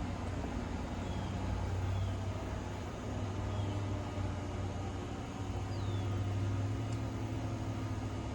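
Steady outdoor background rumble with a low hum, and faint short high chirps recurring about once a second.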